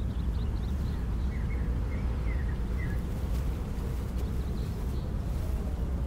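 Steady low rumbling ambience, with a few faint, short bird chirps between about one and three seconds in.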